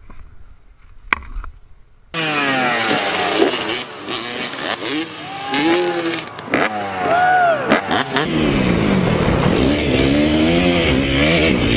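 Dirt bike engines revving hard, their pitch climbing and dropping again and again as the riders accelerate and shift. The engines come in suddenly and loud about two seconds in, after a quieter stretch with a single sharp click.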